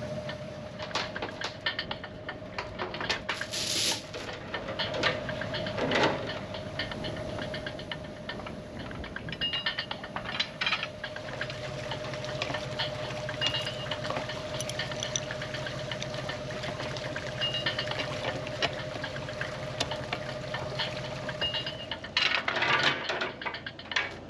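Scattered metallic clicks and clinks as a shackle is fitted to a Fortress aluminium anchor with a wrench, over a steady hum. A short rush of noise near the end.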